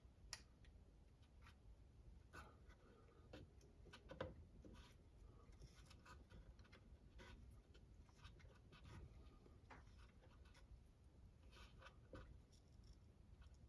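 Near silence with faint, scattered light clicks and scrapes of small parts and a tool being handled while a bolt is started into the wheelie bar; one click about four seconds in is a little louder.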